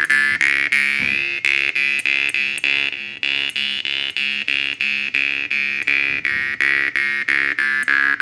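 Shanqobyz (Kazakh jaw harp) plucked in a steady rhythm, a few plucks a second, over one constant drone note. The bright overtone sweeps up to its highest point around the middle, then back down toward the end.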